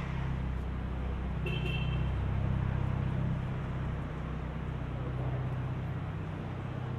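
Street traffic: a steady low engine rumble from vehicles idling and passing, over a general city-street hum. About a second and a half in, a brief high squeal sounds.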